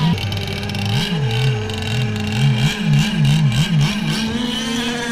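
Gas-powered RC scale unlimited hydroplanes' small two-stroke engines racing. One holds a steady high drone while another's pitch swings rapidly up and down over and over, the swings coming quicker for a moment near the middle.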